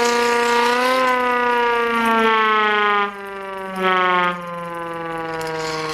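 Vintage hand-cranked air raid siren wailing, its pitch sagging slowly as it is cranked. About three seconds in its volume slide is worked: the sound drops sharply, jumps back to full loudness for half a second, then stays lower.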